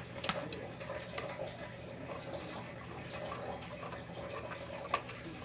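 A few small clicks and taps from handling the wire fork terminals and tightening them onto a toy train transformer's binding posts, over a steady background hiss.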